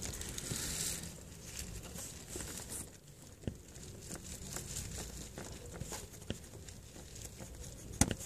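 Light rustling and handling of a plastic car panel, with scattered small clicks and a sharper click near the end, as hands work at its plastic retaining clips.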